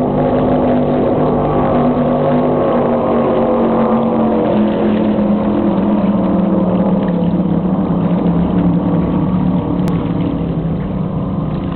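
Offshore racing powerboat engines running at speed on the river: a loud, steady drone whose pitch slowly falls, easing off a little near the end.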